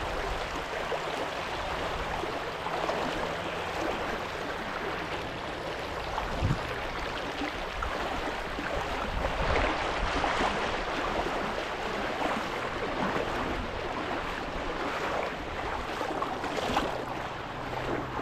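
Shallow river water rushing and splashing around a person wading across it on foot, with a brief thump about a third of the way in.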